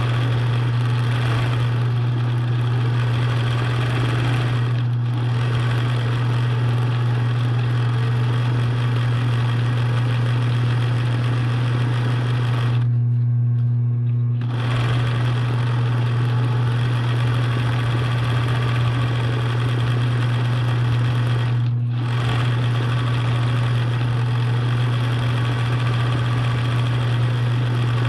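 Sewing machine running in long, steady stitching runs, stopping briefly about 13 seconds in, over a steady low hum.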